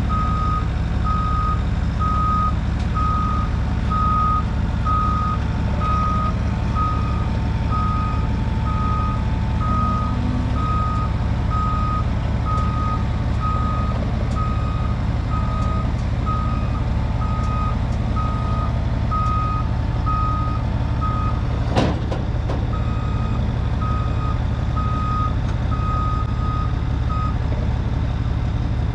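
Bobcat loader's backup alarm beeping steadily, about one and a half beeps a second, as the machine reverses, with its diesel engine running underneath. The beeping stops near the end, and there is a single sharp knock a little after the middle.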